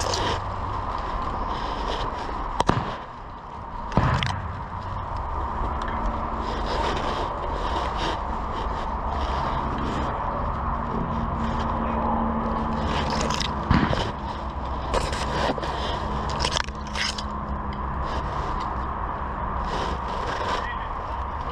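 Close rustling and scraping of brush and gear against the microphone, with sharp knocks about three, four and fourteen seconds in.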